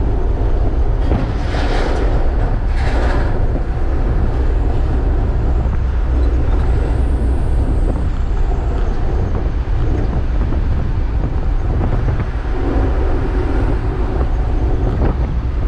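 Inside a moving truck's cab at highway speed: the engine's steady low drone under road and tyre noise, with two brief rushes of noise a couple of seconds in.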